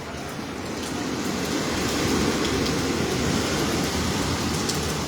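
Hurricane wind and rain, a gust building from about a second in and easing near the end, buffeting the microphone.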